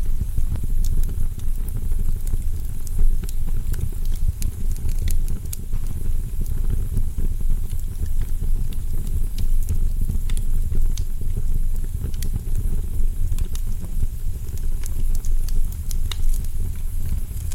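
Wood fire burning in a fireplace: a steady low rumble of flames with frequent sharp crackles and pops from the burning logs.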